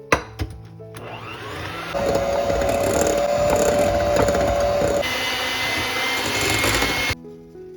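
Electric kitchen appliance motor running for about six seconds, its contents knocking about inside, after a couple of clicks at the start. Its whine jumps to a higher pitch partway through, then the motor cuts off suddenly.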